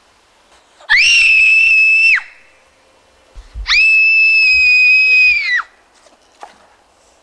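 A girl screaming twice, loud and high-pitched: a held scream of about a second, then a longer one of about two seconds, each kept on one steady pitch.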